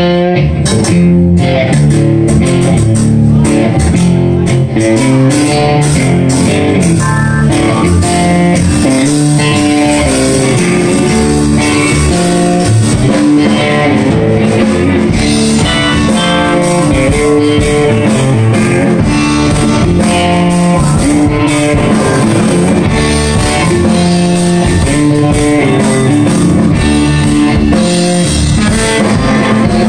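Live band playing an instrumental riff on electric guitar and electric bass guitar, loud and steady.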